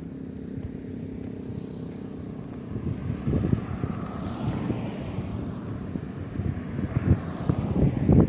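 Road traffic: a vehicle engine running with a steady hum, then a vehicle passing with a rise and fall. Wind buffets the microphone in gusts from about three seconds in.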